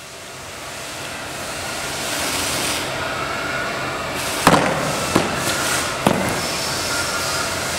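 A packed cardboard carton dropped from a ledge hits the concrete ground about four and a half seconds in with one sharp thud, then two smaller knocks as it bounces and settles, all over a steady background noise.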